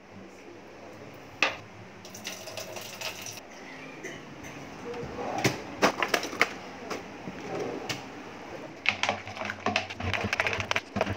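Handling noises: scattered clicks and knocks as a hand rummages among tools and tape rolls in a drawer, then a rapid run of small clicks and scrapes near the end as a hand stirs a foamy cleaning mix in a plastic mug.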